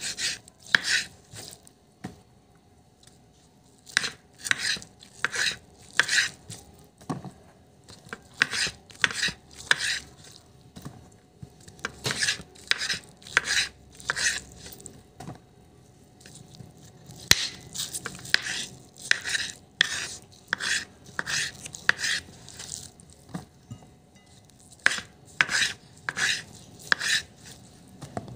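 Kitchen knife cutting through pieces of fried yellow tofu and knocking on a wooden cutting board: a run of short, sharp chops about one or two a second, with a couple of brief pauses.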